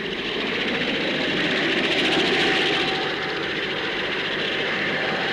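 Fairey Ultra-Light helicopter running: a steady rushing jet noise from its tip-jet rotor with a faint steady whine. The noise swells in at the start and then holds.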